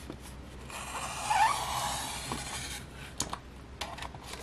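A paper trimmer's blade carriage slid along its rail, slicing a journal page: a scraping run of about two seconds with a short rising squeak in the middle, then a few sharp clicks near the end.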